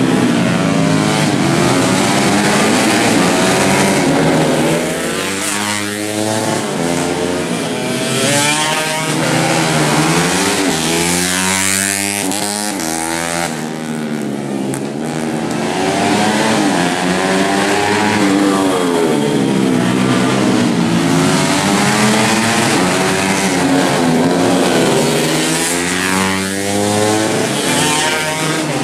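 Several racing underbone motorcycles at full throttle, their engine notes climbing and dropping over and over as they accelerate, shift and brake around the circuit, with more than one engine often heard at once.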